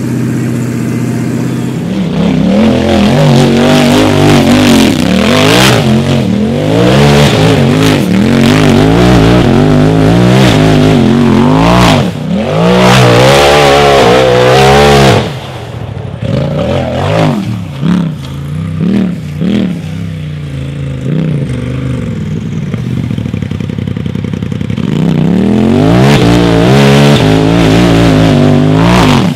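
UTV engine revving hard in repeated throttle bursts, its pitch sweeping up and down. About halfway through it drops back to quieter, short throttle blips, then revs up again near the end.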